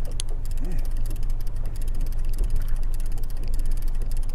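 Fishing reel being wound by hand, its mechanism giving a fast, even clicking, over a steady low rumble.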